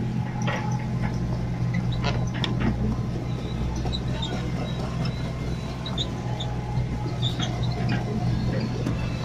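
Hitachi crawler excavator's diesel engine running steadily as the machine travels over rough ground, with many short high squeaks and clicks from the moving machine.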